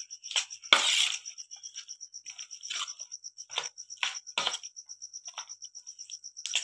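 Wet squelching and squishing as a hand kneads chicken pieces through a thick yogurt-and-spice marinade with oil in a steel bowl, in irregular squishes, the loudest about a second in. A cricket chirps underneath in a high, even pulse.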